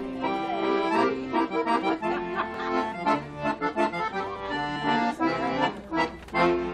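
Accordion playing a tune over chords: the instrumental introduction to a song, before the singing comes in.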